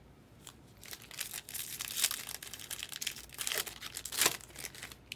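Foil wrapper of a baseball card pack crinkling and tearing as it is handled and opened, in irregular crackly bursts, with the loudest ones around two and four seconds in.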